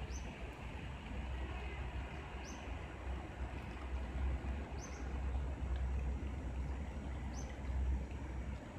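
Light rain falling as a steady hiss, with a bird giving a short, high, falling chirp about every two and a half seconds and a low rumble underneath.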